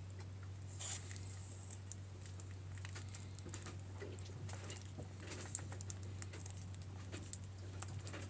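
Small scattered clicks and rustles of hand-sewing a sail slide onto sailcloth: needle and thread pulled through the cloth and the sail fabric handled, with a sharper click about five and a half seconds in. A steady low hum runs underneath.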